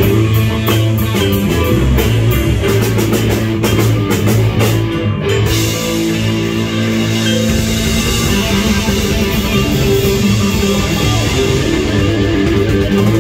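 A band playing a rock song live, with electric guitar, keyboard and drums.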